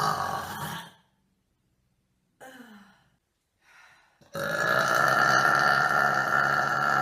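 Person burping: a long, loud burp trailing off about a second in, a short fainter burp with a falling pitch and another faint one in the middle, then a long, drawn-out loud burp starting a little past halfway.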